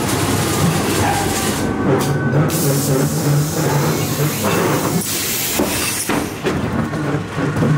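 Pretzel ghost train car rolling along its track: a steady rumble with frequent knocks and rattles from the wheels and car.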